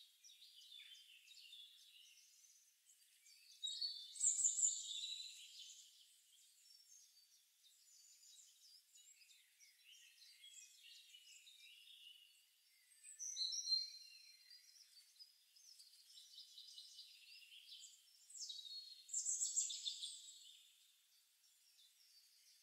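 Recorded forest birdsong ambience: small birds chirping over one another, quiet throughout, with louder bursts of song about four seconds in, around thirteen seconds and near nineteen seconds.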